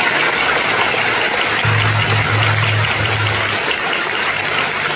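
An audience applauding steadily, with low background music underneath; the applause ends abruptly.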